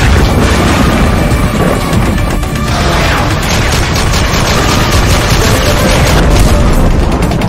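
Dramatic intro music layered with sound effects of booms and rapid gunfire, the shots coming thick and fast through the middle.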